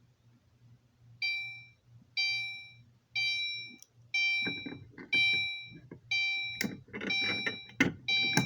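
Fire alarm horn-strobe on its chime setting, a Gentex Commander 3, sounding eight dings about once a second, each dying away. From about halfway, clicks and a lower rough sound join in.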